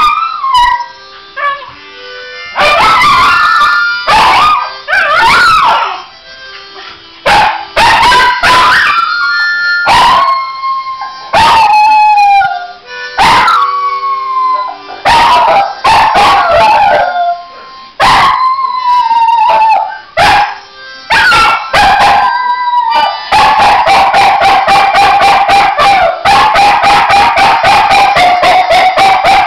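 A Norwegian Elkhound x American Eskimo mix dog howling along to a harmonica: a string of howls, each falling in pitch, with short steady harmonica notes between them. In the last six seconds the howling runs on without a break, with a rapid pulsing.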